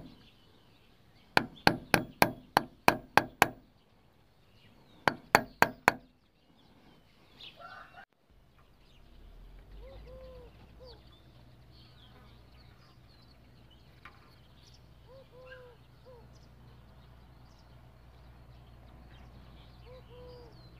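Quick series of sharp metallic taps from a small hammer on a pin punch held against a tube fitting on a Keihin scooter carburetor: about nine taps in two seconds, then five more a couple of seconds later. After that there is a faint steady hum, and a bird calls three times.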